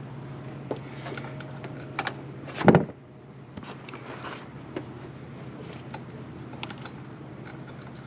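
Plastic cable ties and wiring being handled as the wires are tied down, with scattered clicks and rustles and one short, loud rasp about three seconds in, over a steady low hum.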